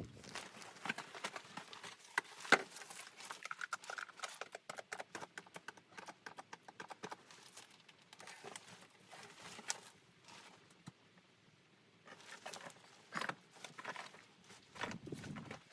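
Many irregular short clicks and knocks, clustered in busy stretches with a quieter gap about two-thirds of the way through.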